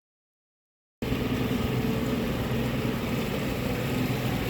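Dead silence for about the first second, then a motorboat's engine running steadily under way, a low hum under a constant rushing noise.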